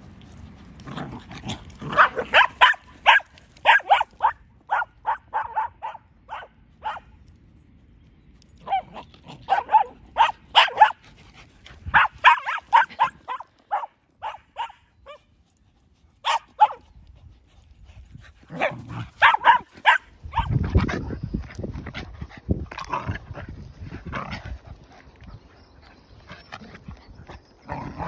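Dogs barking during rough play: runs of quick, sharp barks, several a second, in bursts with pauses between them.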